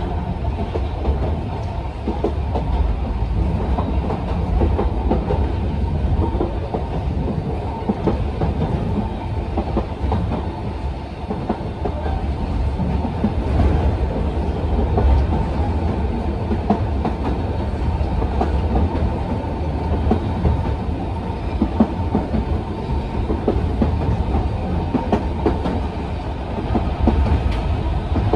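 Ride noise inside the Sangi Railway Hokusei Line's Mo 275, a 762 mm narrow-gauge electric railcar, running at speed: a steady low rumble of wheels on rail with frequent small clicks and rattles from the running gear and car body.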